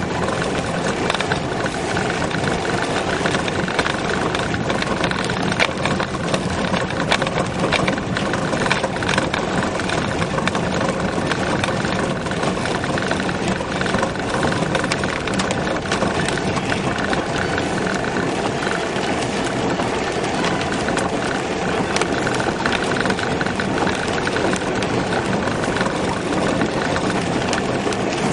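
Peugeot car driving over a potholed dirt track, heard from inside the cabin: steady engine and road noise with many small knocks and rattles.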